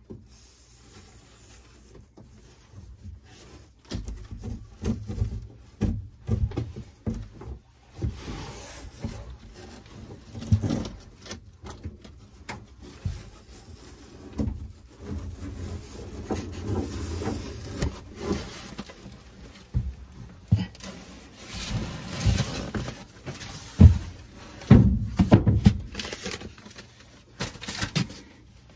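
Old water-stained ceiling panels being worked loose and pulled down from a boat cabin's aluminum overhead frame: irregular scraping, creaking and knocking of the panel board against the frame, with the sharpest knocks near the end.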